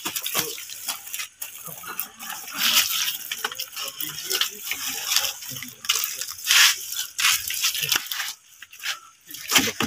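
Water poured from a plastic dipper splashing onto the ground and leaves, in a few separate surges with small knocks and rustles between.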